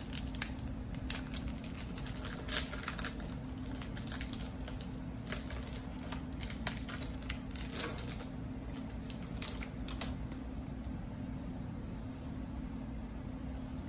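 Foil trading-card pack being torn open and crinkled, then the glossy cards slid out and handled: quick crackly rustles and clicks that thin out about ten seconds in, over a steady low background hum.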